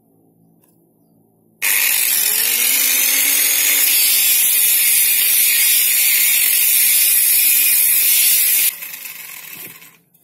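Hand-held electric disc sander switched on and run against the corner of a wooden boat strip, a loud steady whirring and rasp, sanding the edge smooth. It cuts off sharply near the end and winds down over about a second.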